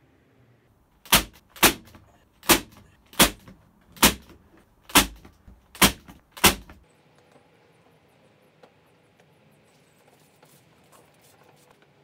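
Corded electric nail gun firing eight sharp shots, one every second or less, driving nails through a wooden roof board into the birdhouse. The shots stop about two-thirds of the way through, followed by faint handling noise.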